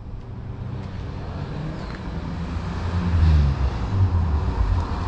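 1988 BMW 535is straight-six engine running as the car approaches, growing louder from about three seconds in.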